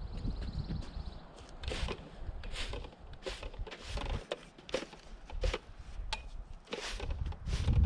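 A broom sweeping sawdust off rough-milled wooden boards, about a dozen short brushing strokes at a steady pace, roughly one every three-quarters of a second.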